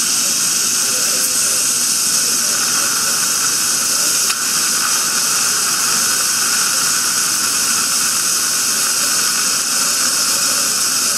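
Dental equipment hissing steadily and loudly, an even rushing noise with no breaks.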